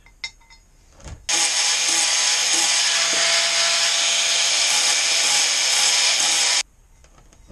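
Angle grinder with a thick 1/8-inch disc cutting into metal, a loud continuous grinding that starts abruptly about a second in and cuts off sharply near the end.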